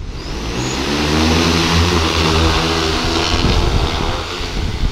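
Agricultural crop-spraying multirotor drone spinning up its propellers, the pitch rising over the first second or so, then running loud and steady as it lifts off.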